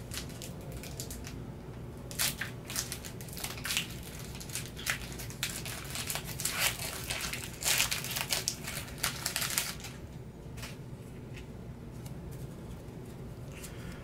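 Foil wrapper of a Pokémon TCG Ultra Prism booster pack crinkling as it is handled and opened by hand, in short irregular bursts with a longer stretch of crinkling about eight seconds in, quieter for the last few seconds.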